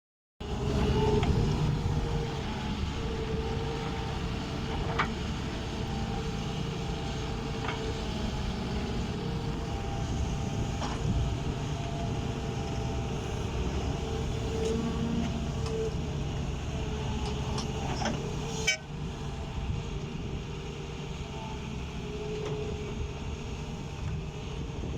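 Heavy diesel machinery, an excavator working with dump trucks, running steadily, with an on-and-off whining tone and a few sharp knocks. A sharp click comes about 19 seconds in, and the sound is quieter after it.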